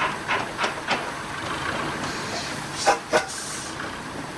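Fowell steam traction engine: a few sharp, rhythmic steam beats, about three a second, give way after about a second to a steady hiss. About three seconds in come two sharp metallic clanks and a short burst of hissing steam.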